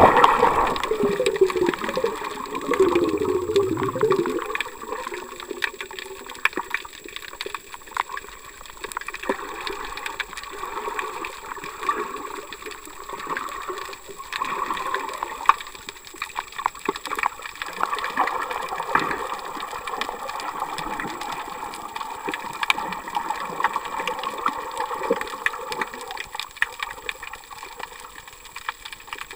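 Seawater moving around a camera held underwater: sloshing and gurgling, with scattered small clicks and crackles throughout. In the first few seconds a louder gurgle wavers and falls in pitch.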